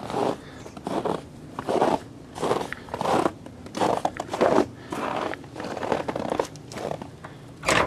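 Footsteps crunching through snow at a steady walking pace, about three steps every two seconds.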